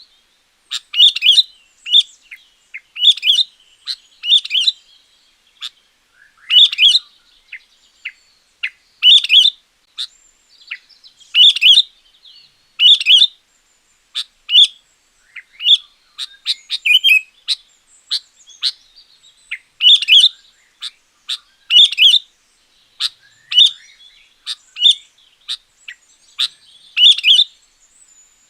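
Sooty-headed bulbul (kutilang) singing: short, loud chirping phrases repeated every second or two.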